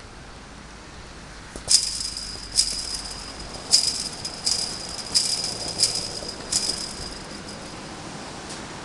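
Chain-link fence rattling with a short metallic ring as it is kicked, seven sharp hits in a steady rhythm a little more than one a second, starting about one and a half seconds in.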